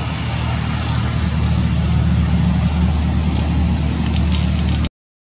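Steady low rumble of a running engine, with a hiss above it, that cuts off suddenly near the end.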